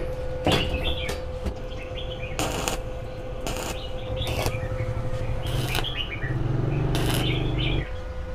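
Stick (arc) welder tack-welding thin steel square tubing: about five short crackling bursts of the arc, each a fraction of a second, over a steady electrical hum.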